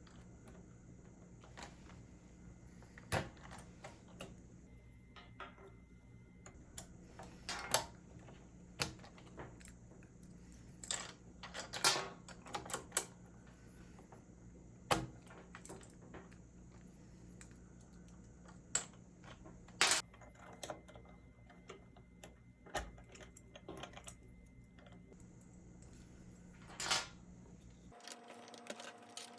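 Scattered, irregular plastic clicks and taps from an HHKB Professional 2 Topre keyboard being handled during cleaning, over a steady low hum that stops near the end.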